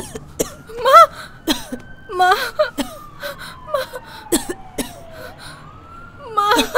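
A woman crying: broken sobs and whimpers, three or so pitched cries, with sharp gasping breaths between them.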